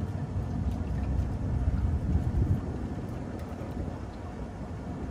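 Wind buffeting the microphone in a low, uneven rumble that gusts stronger around two seconds in, with a few faint clicks.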